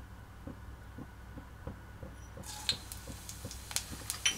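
Whole cumin seeds tipped into hot oil in a kadai, hissing and crackling as they fry, starting a little over halfway through: the tempering (phoron) stage of the dal.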